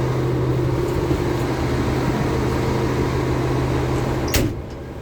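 K-700 tractor's MAN diesel engine idling steadily; about four and a half seconds in, a cab door slams shut, after which the engine sounds muffled.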